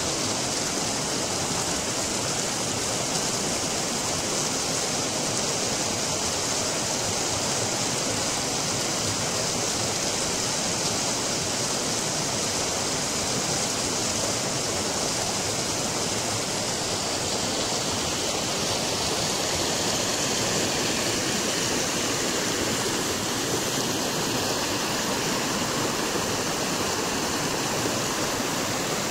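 Water of a small waterfall falling and splashing, an even, unbroken rush of noise.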